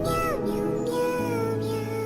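Background music: sustained chords under a gliding, voice-like melody line that rises and falls near the start.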